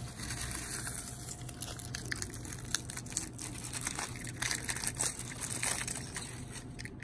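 Aluminium foil crinkling and crackling as hands unwrap it from around a small toy car, with sharper crackles in the second half.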